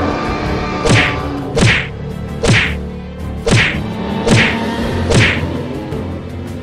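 Cartoon fight hit sound effects: six sharp whacks, roughly one a second, over steady background music. The hits stop about five seconds in.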